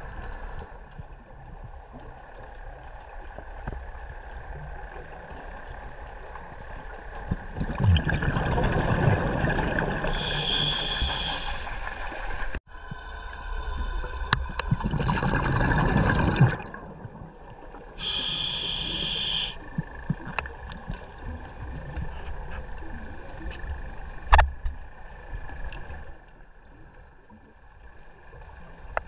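Underwater scuba breathing heard from a diver's camera: two long rushes of exhaled bubbles from the regulator and two shorter, hissing inhalations with a high ring, over a low steady background noise. A single knock comes near the end.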